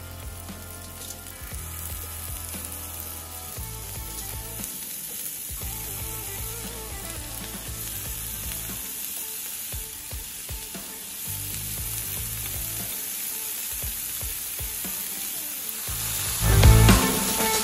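Raw bacon strips sizzling and frying as they are laid on a hot griddle pan, a steady spitting hiss. Music comes in louder near the end.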